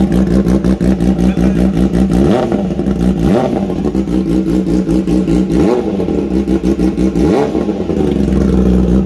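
Kawasaki Ninja ZX-10R's inline-four engine idling through a full SC Project exhaust, blipped several times so the note sweeps up and falls back each time.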